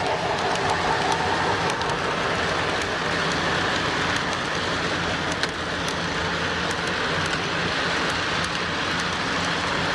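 O gauge model train running on its track: a steady whir and rumble of the electric motor and wheels, with small scattered clicks as the wheels pass over the rail joints.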